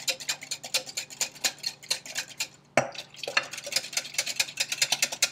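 Wire whisk stirring cold-process soap batter in a glass mixing bowl, its wires clicking rapidly against the glass, about seven clicks a second with a short break about halfway through.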